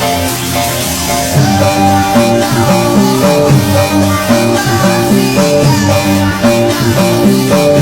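Background music led by guitar with a steady beat; a fuller band part with a bass line comes in about one and a half seconds in.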